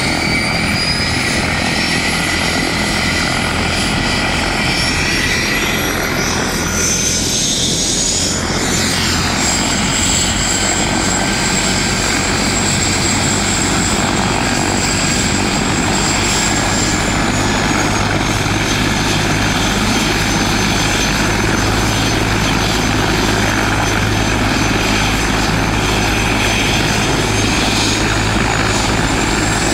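Bell 412 helicopter running on the ground with its rotor turning: a steady low rotor and engine drone under a turbine whine that climbs in pitch over the first ten seconds or so, holds, sags slightly, then rises again near the end.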